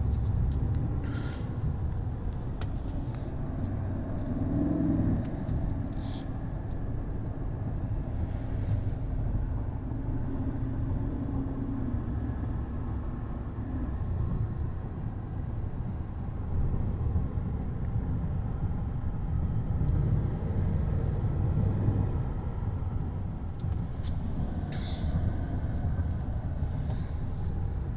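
Steady low road and engine rumble heard inside the cabin of a 2019 GMC Yukon XL Denali cruising at about 52 mph, with a few faint clicks near the end.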